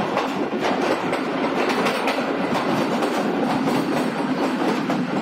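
Passenger train running through a rock tunnel: a steady rumble of the coaches with a rapid, irregular clatter of wheels over the rail joints, heard from an open carriage door inside the tunnel.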